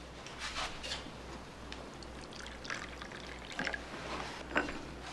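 Hot coffee poured from an enamelware coffee pot into china cups, a trickling pour broken by a few short light knocks.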